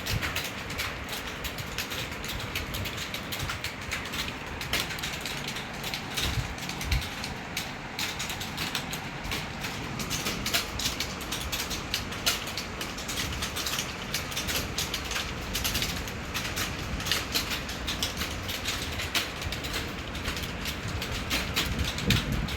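Fast, continuous typing on a keyboard: a steady stream of rapid key clicks.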